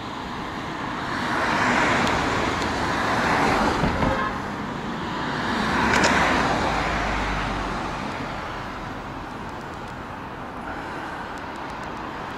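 City road traffic: cars passing one after another on the street, each swelling and fading, about two, three and a half and six seconds in. After that a steady lower traffic hum.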